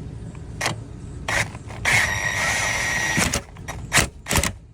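Cordless impact tool running for about a second and a half as it turns the scissor jack's screw to lift the car, with a steady high whine. Metallic clicks and knocks from the jack and tool come before and after it, two sharp ones near the end.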